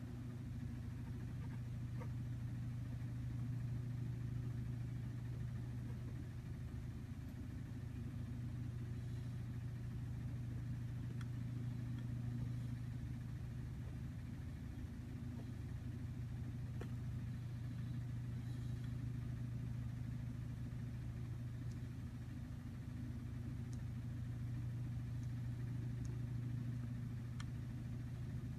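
Steady low hum of a running motor, with a few faint ticks.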